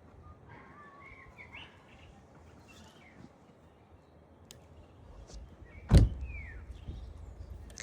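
Birds chirping faintly with short gliding calls over quiet outdoor background noise. About six seconds in there is a single loud thump, with a low rumble around it.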